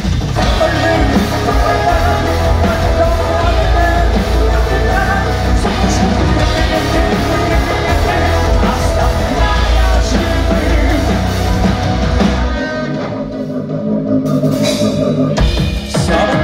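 Live rock band playing through a PA: electric guitars, bass guitar and drum kit, with a singer's amplified voice. About twelve seconds in the bass and drums drop out for a few seconds, then come back in near the end.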